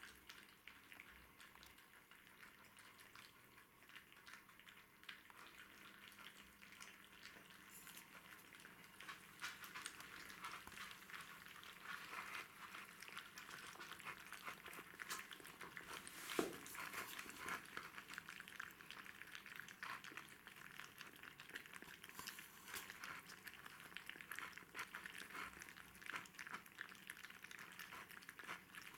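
A litter of one-month-old Jack Russell terrier puppies eating soft curd cheese from plastic bowls: many faint clicks of lapping and chewing, sparse at first and growing busier after several seconds, with one louder click near the middle.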